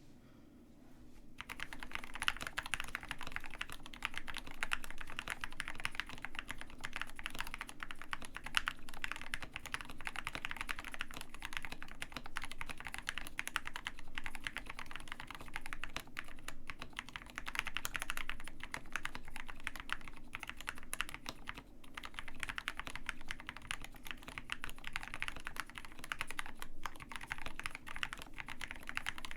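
Continuous fast typing on a KBD67 Lite R2 65% custom mechanical keyboard with Gateron Black Ink V2 linear switches on a POM plate in a silicone-mounted plastic case, a dense run of keystroke clacks. The typing starts about a second and a half in and stops briefly a few times.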